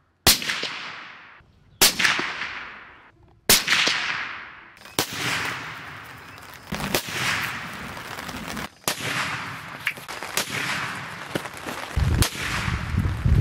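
Suppressed .308 Winchester bolt-action rifle firing a series of shots. Each sharp report trails off in an echo lasting a second or more. The first three are well apart, and later ones come closer together so their echoes overlap.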